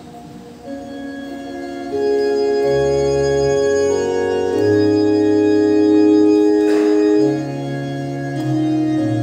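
Organ playing slow, sustained chords over deep bass notes, coming in softly near the start and growing fuller about two seconds in.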